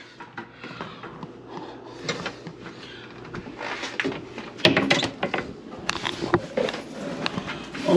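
Handling noise under a sink cabinet: light rubbing and knocks, with a cluster of sharper clicks and taps about halfway through.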